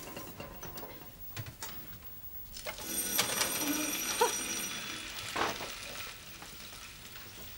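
Bacon starting to sizzle in a hot frying pan about three seconds in, a high hissing with a few clicks, which settles to a quieter sizzle after a couple of seconds.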